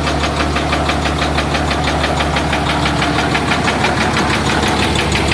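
Freshly overhauled Hino straight-six diesel engine running steadily on its test run, driving a generator, with an even, rapid firing pulse.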